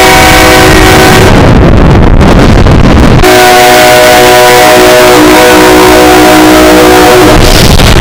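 Train horn of an arriving SEPTA Silverliner IV commuter electric train, amplified until it distorts: a short blast, then about three seconds in a longer blast of about four seconds, a chord of several notes over harsh clipped noise.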